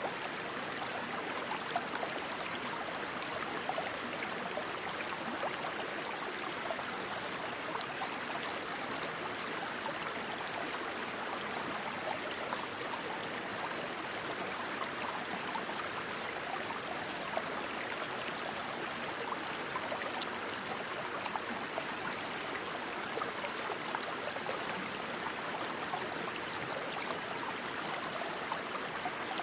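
A stream of rushing water flowing steadily. Short high chirps are scattered over it, with a brief fast trill about eleven seconds in.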